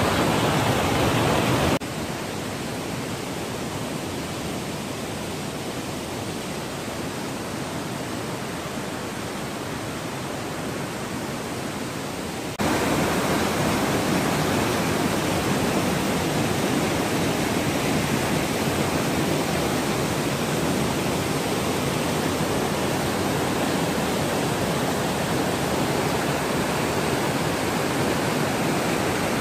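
Waterfall's white water rushing steadily down a rocky cascade, an even unbroken noise. Its level drops abruptly about two seconds in and jumps back up about thirteen seconds in.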